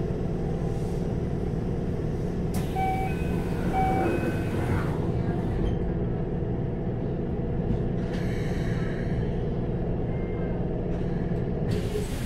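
Steady hum inside a stationary Keikyu 600-series commuter train car, with bursts of air hiss coming and going, three times. A few short beeps sound about three to four seconds in.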